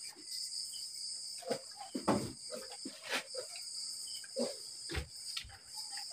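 Night insects chirping steadily in a high, even drone, with a few short knocks scattered through it.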